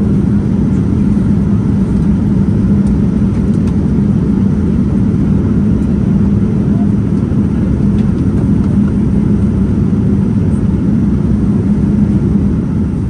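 Steady in-flight cabin noise of a Boeing 787-9 airliner with Rolls-Royce Trent 1000 engines: a loud, even, low drone of engines and airflow with a steady low hum.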